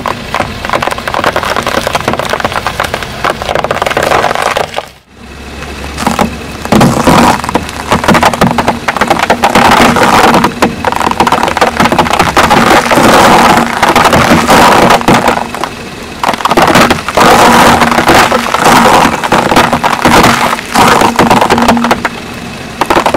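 Sugar cubes crunching and crackling under a slowly rolling car tyre: a dense run of sharp cracks, broken by a short drop about five seconds in.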